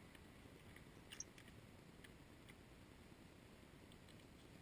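Near silence, with a few faint clicks from a quick-release bar clamp being handled. The loudest click comes about a second in.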